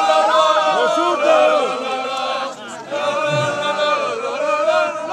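A group of men singing a song together with held notes, with a short break about halfway through.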